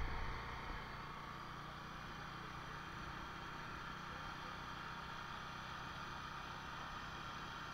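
Motorcycle engine running at a steady cruising speed on the move, under a constant rush of road and wind noise.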